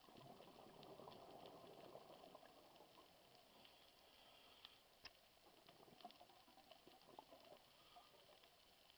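Faint underwater reef ambience: a steady crackle of many small clicks with a bubbling quality, a little fuller in the first couple of seconds, and a few sharper ticks scattered through it.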